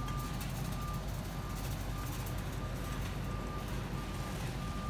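Electronic warning beeper sounding a single high tone on and off about once a second, some beeps longer than others, over a steady low hum.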